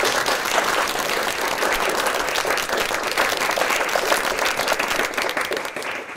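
Audience applause: a large crowd clapping steadily, dying away near the end.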